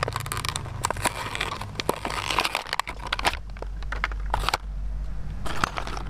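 Toy blister pack being torn open by hand: the paper backing card and the plastic blister crackle and crinkle in irregular bursts. A low rumble runs underneath from about halfway.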